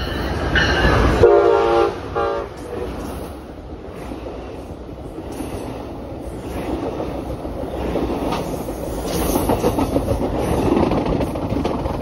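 Amtrak Pacific Surfliner's Siemens Charger locomotive sounding its horn in short blasts in the first couple of seconds as it approaches, then the train's bi-level passenger cars rolling past with a steady rumble and wheel clatter that grows louder near the end.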